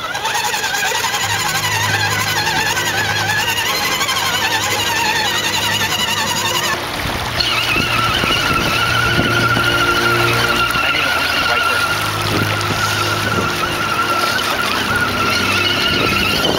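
Whine of a radio-controlled scale Toyota FJ Cruiser crawler's electric motor and gears as it drives through creek water. The pitch rises and falls with the throttle for the first several seconds, then holds steady.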